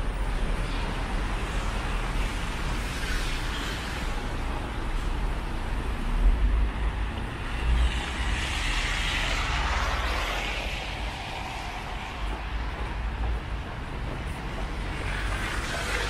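Road traffic on a wet, slushy city street: a steady rumble of passing vehicles. About eight seconds in, a car drives close by and its tyre noise swells and fades.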